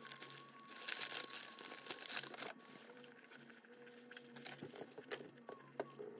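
Paper wrapper, thin plastic film and a plastic bag crinkling and rustling as a pita wrap is unwrapped by hand. The rustling is busiest about one to two and a half seconds in, then settles into lighter scattered crackles.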